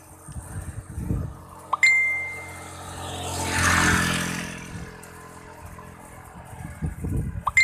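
A small motorcycle passes from behind, its engine rising to a peak and fading as it pulls ahead. Two sharp metallic dings, each with a brief ring, come about two seconds in and at the very end.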